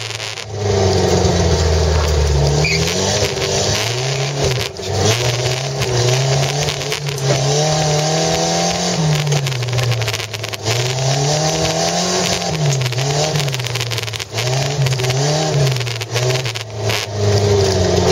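Volvo 240's engine heard from inside the cabin, revving up and down repeatedly as the car is driven hard over rough field ground, with occasional knocks.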